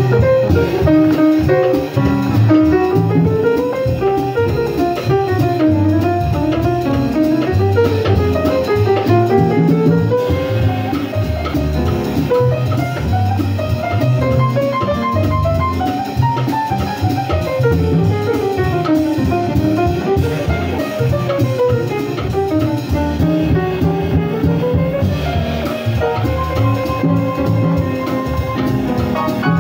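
Live jazz piano solo on a grand piano: fast runs of notes climbing and falling, with drums keeping time behind it.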